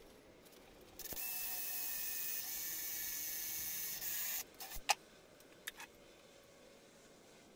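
Cordless drill running for about three seconds, boring a hole through the steel cylinder of an old fire extinguisher, with a steady high-pitched whirr of the bit in metal. Then come a few sharp knocks as the drill is set down on the wooden bench.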